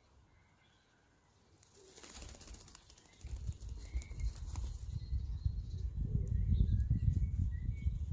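Female Eurasian blackbird shuffling and shaking in her nest: rustling of feathers and dry nest material starting about two seconds in. A low rumbling noise follows and grows louder toward the end.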